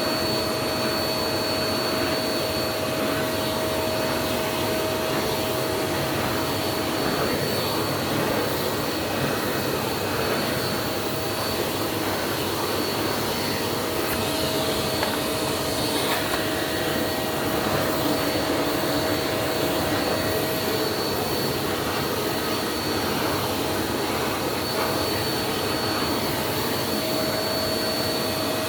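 Vacuum cleaner running steadily with a constant whine, its nozzle being worked over a cat's fur to groom it.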